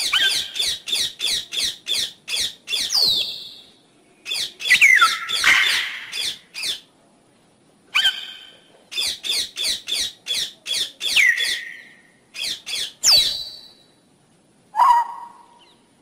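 Parrot squawking: quick runs of short, sharp calls, about five a second, in bursts with brief pauses between them. Several of the calls slide downward in pitch.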